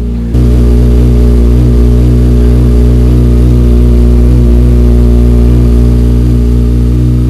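Kawasaki ZX-6R's 636 cc inline-four idling steadily through an Akrapovic exhaust, shortly after a cold start. It steps up in loudness just after the start, then holds a steady, even idle with no revving.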